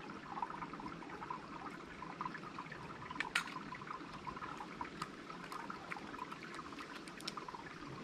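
Faint trickling water, with a few light clicks scattered through it.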